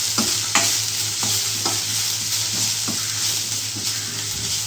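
Chopped onion, garlic and green chilli sizzling in a little oil in a pan as they are stirred, with a few short scrapes and taps against the pan.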